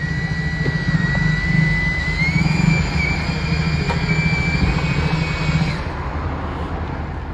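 Angle grinder cutting metal, a steady high whine that rises slightly in pitch about two seconds in and cuts off suddenly about six seconds in. Underneath it, motorbike engines are running.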